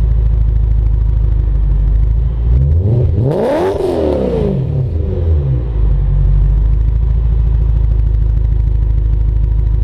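BMW E92 M3's V8 idling through an all-titanium Akrapovič Evolution exhaust with GT4 X-pipe and no catalytic converters. It is blipped once about three seconds in, rising quickly in pitch and falling back to a steady idle.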